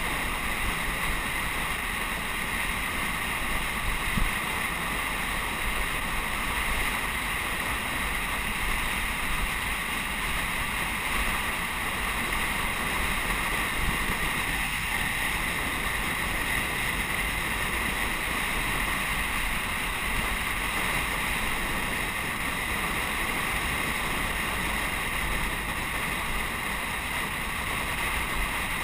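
Steady wind noise rushing over an action camera's microphone on a road bicycle descending at speed, with one brief knock about four seconds in.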